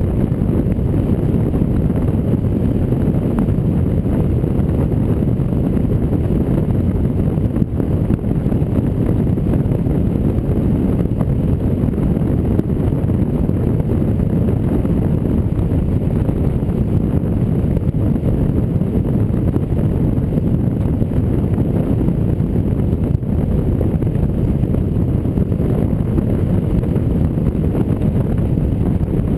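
Steady low rumble of a Jeep Rubicon driving a gravel road, heard from a hood-mounted camera, with wind buffeting the microphone and tyre and road noise mixed in.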